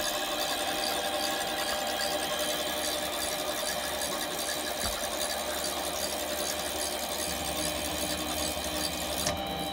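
Chinese mini metal lathe running under power feed while a threading tool cuts a thread into an aluminium bar, taken 3 thousandths deep. It makes a steady whirr with a high hiss that drops away with a click about nine seconds in.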